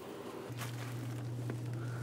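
A few faint knocks and shuffles of someone climbing a wooden pull-down attic ladder and stepping into the attic, over a steady low hum that grows louder about half a second in.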